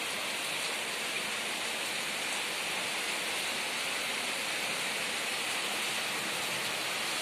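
Steady, even hiss with no distinct knocks or events, like rain or constant background noise.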